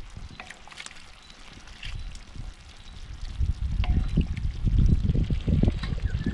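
Wind buffeting the microphone as a low, uneven rumble that grows louder about four seconds in, with scattered light clicks.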